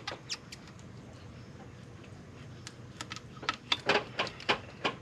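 Pliers clicking and creaking against a plastic engine hose fitting as it is wiggled and pulled loose: a few light clicks at first, then a quick run of clicks and creaks in the second half.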